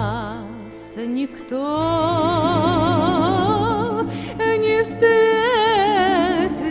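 Music: a slow melody in long held notes with wide vibrato, over a steady accompaniment.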